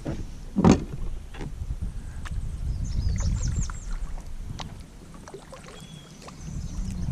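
Kayak paddling: paddle strokes with water splashing and lapping at the hull, and one sharp knock a little under a second in. It goes quieter for a moment past the middle.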